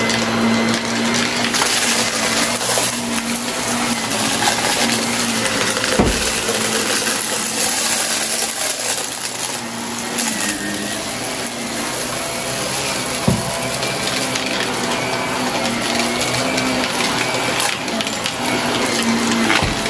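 Shark upright vacuum cleaner running steadily over carpet and a shag rug, with crunching and rattling as grit and debris are sucked up. Three sharp knocks: about six seconds in, about thirteen seconds in, and near the end.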